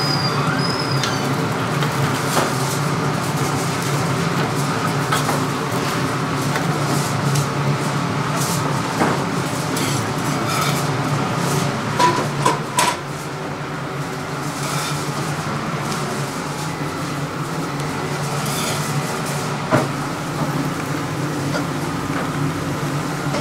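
Steady hum of a restaurant kitchen's extractor and equipment, with occasional clinks and knocks of utensils and plates.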